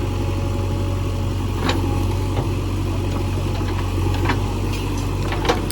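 JCB 3DX backhoe loader's diesel engine running steadily at low revs, with a couple of short sharp knocks, one a little under two seconds in and one near the end.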